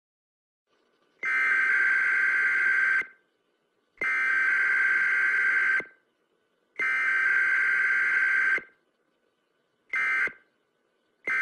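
Electronic alert tone beeping at one steady high pitch: three long beeps of nearly two seconds each, then quick short beeps near the end, in the manner of an emergency broadcast alert signal.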